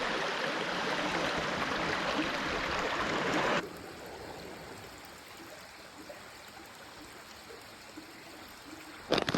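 Mountain stream running steadily, a loud even rush for the first three and a half seconds that drops suddenly to a quieter flow. A few sharp clicks come near the end.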